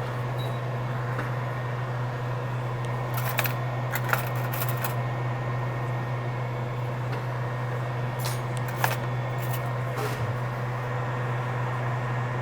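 Steady low hum of bench equipment, with a few short sharp clicks and ticks of small metal tools handling a phone logic board held in a fixture.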